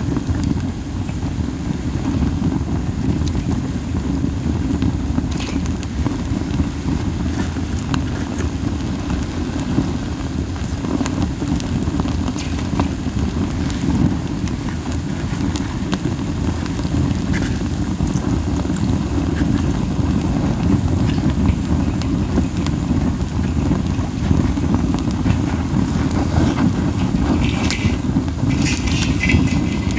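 Pine cones burning in a campfire: soft, scattered crackling pops over a constant low whooshing rumble from the strong flames and wind buffeting the microphone. A brief cluster of sharper crackles comes near the end.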